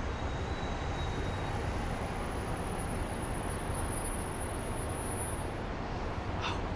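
Steady rumble and hiss of distant urban traffic, even and unbroken, with no distinct events. A faint high-pitched whine runs through the middle.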